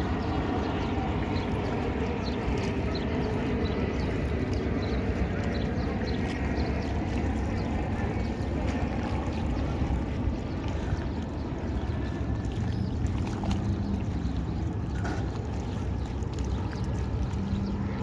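Outdoor waterfront ambience: a steady rush of wind and choppy river water lapping, with faint distant voices.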